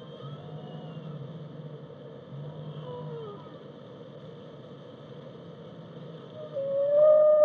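Whale song: a steady low rumble with faint high whistles and short pitch glides. About six and a half seconds in, a loud, long pitched whale call starts and is still sounding at the end.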